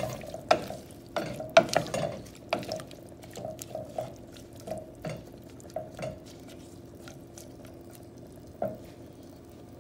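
Wooden spatula stirring a wet, coconut-milk curry of snake gourd and potato in a pot, knocking and scraping against the pot's sides. The knocks are loudest and closest together in the first few seconds, then thin out to occasional taps, over a steady low hum.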